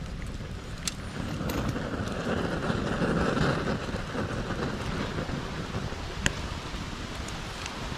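Bonfire burning with a steady rushing sound that swells about two to three seconds in, scattered with sharp crackles and one loud pop about six seconds in.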